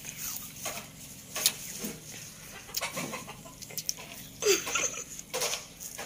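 A chicken clucking: a few short, separate calls, the loudest about four and a half seconds in, sliding down in pitch, with another soon after.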